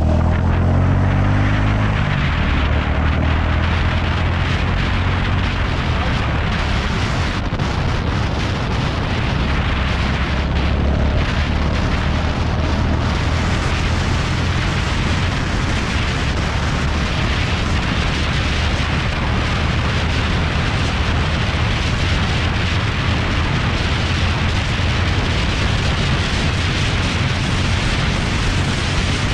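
Royal Enfield Classic 350's single-cylinder engine running steadily at high highway speed on a top-speed run, largely buried under loud, steady wind noise on the microphone.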